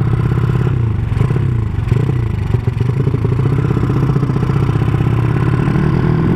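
Honda Supra motorcycle's single-cylinder four-stroke engine, bored out to 200cc, running through an aftermarket CJDW exhaust while the bike is ridden, its note wavering with the throttle and dipping briefly about two and a half seconds in.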